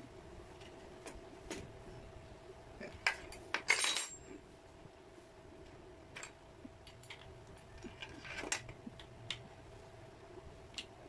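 Small steel wrench and router collet nut clicking and clinking as a bit is locked into a palm router's collet: scattered light clicks, with a louder metallic clatter about three to four seconds in and another near eight and a half seconds. A faint steady hum runs underneath.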